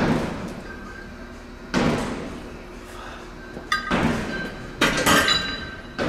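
Loaded barbell front squats: a sharp, echoing hit with each rep, about two seconds apart. Then, near the end, a run of metal clanks with a ringing tone as the barbell and its plates are set back onto the squat rack's hooks.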